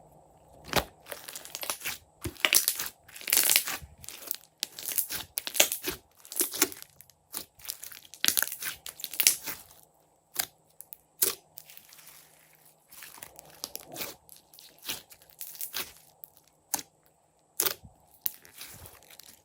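Glossy slime being worked by hand, giving irregular sticky crackles and pops. They come in thick clusters through the first half, then thin out to scattered single snaps.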